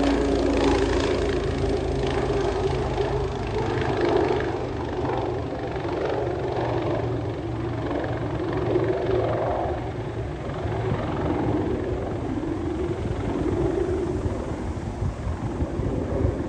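Basler BT-67's twin Pratt & Whitney PT6A turboprops, a steady propeller drone that wavers in pitch and slowly fades as the aircraft rolls out after landing.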